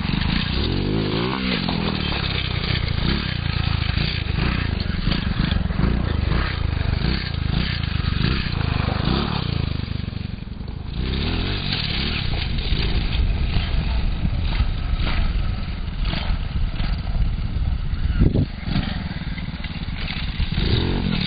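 110cc engine of a custom quarter-scale RC truck running and revving as the truck drives, its pitch rising and falling again and again. It eases off briefly about halfway through, then revs back up.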